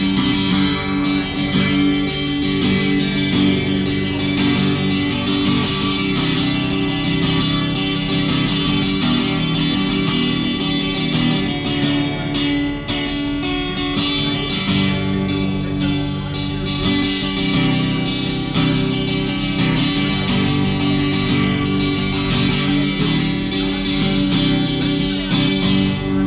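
Acoustic guitar plugged into a small amplifier, played as a continuous tune.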